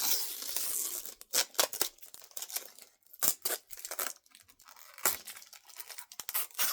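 Plastic wrapping being torn and peeled off a new graphics card: a longer rip in the first second, then scattered sharp crinkles and crackles.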